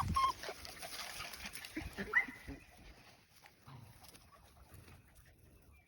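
Australian Shepherd puppies whining: a short whine right at the start, then a sharp cry that rises and holds about two seconds in, followed by quieter movement.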